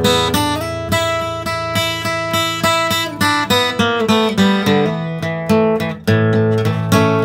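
Background music: acoustic guitar strumming chords in a steady rhythm, about two strums a second.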